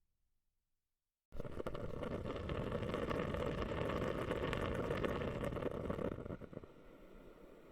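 Rushing water starting suddenly about a second in as a dense, steady noise, then dropping abruptly to a much quieter wash near the end.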